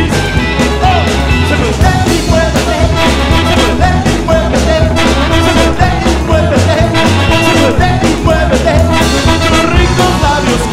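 Rockabilly band playing a song live, with a steady, driving beat.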